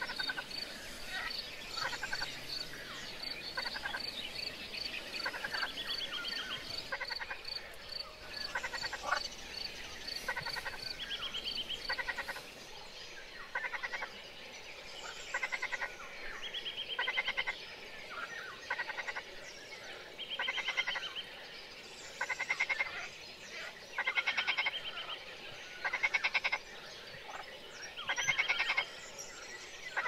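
Frogs croaking: short pulsed calls repeated every second or two. A steady high ticking, about two a second, runs through roughly the first twelve seconds.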